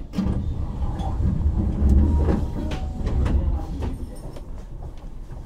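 Keihan 7200-series electric train, heard from inside the car: a low rumble with scattered knocks and clunks, loudest about two seconds in, around a station stop.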